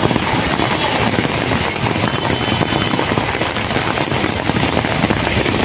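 Heavy rain falling and traffic driving through a flooded street: a steady, loud hiss of rain and water with vehicle engines beneath it.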